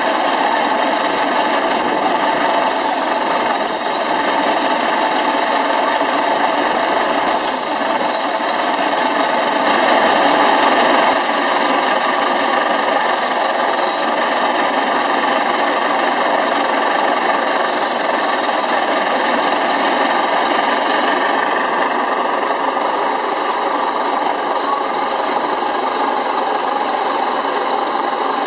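Pence Bull Pup steam tractor running, its steam-shovel swing engine driving an early crossmount gas-tractor transmission: a steady, fast mechanical clatter, briefly a little louder about ten seconds in.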